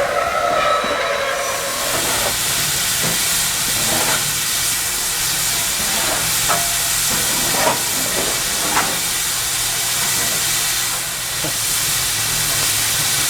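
Steam locomotive letting off steam with a loud, steady hiss, a low rumble beneath it and a few faint knocks.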